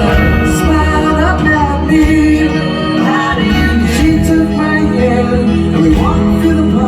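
A live pop band playing with sung vocals over guitar and rhythm-section accompaniment.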